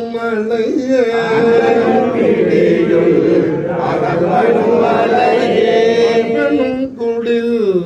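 A group of men chanting a Tamil devotional song together, their voices merging into one long held note from about a second in and dropping in pitch near the end.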